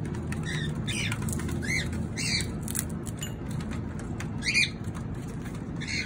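Cockatiel giving short chirps, about six spread over a few seconds, with faint clicks as its beak works a leaf. A steady low hum runs underneath.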